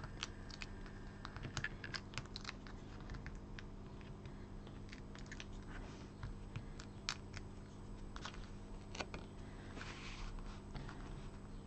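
Paper release backings being peeled off small foam adhesive pads on a card panel: faint, scattered little clicks, ticks and paper crinkles.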